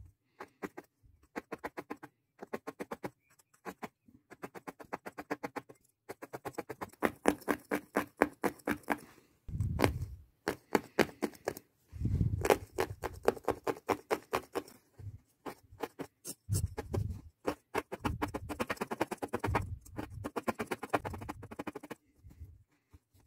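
Felting needle stabbing repeatedly through wool roving into fabric: rapid crisp pokes, several a second, in runs of a few seconds with short pauses, with dull thuds underneath at times.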